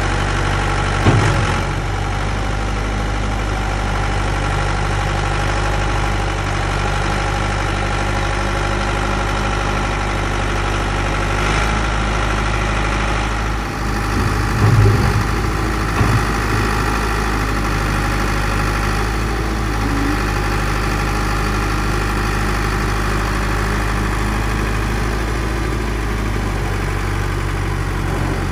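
Sanderson T2 Teleporter telehandler's diesel engine idling steadily while the boom is lowered and the bucket set down, with a few clunks about a second in and around fifteen seconds in.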